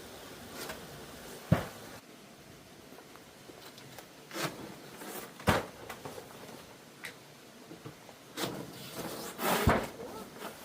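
Handling noises: three sharp knocks, the loudest near the end, with short bursts of rustling and scraping between them.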